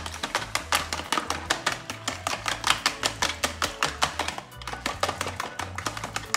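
Fork beating raw eggs in a plastic tub: a fast run of clicks, several a second, as the fork strikes the tub's sides and bottom, with a short pause about four and a half seconds in. Background music with a bass line plays underneath.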